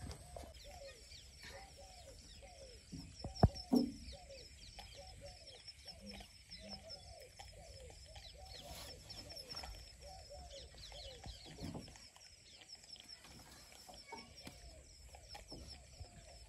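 Birds chirping and calling continuously in the background, many small rapid chirps over repeated lower calls, with one sharp knock about three and a half seconds in.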